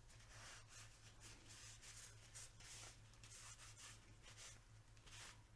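Faint rubbing of a rag wiping excess oil off an Intratec TEC-9 9mm pistol, in soft, irregular strokes over a low steady hum.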